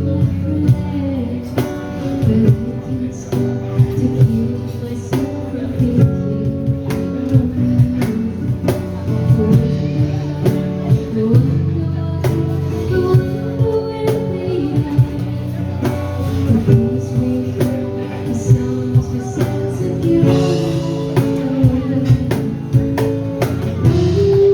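A small band playing live: guitar and drums keeping a steady beat, with a singer's voice over them.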